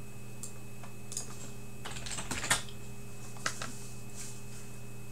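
Scattered keystrokes on a computer keyboard, a quick cluster of clicks about two seconds in and another click near three and a half seconds, over a steady electrical hum.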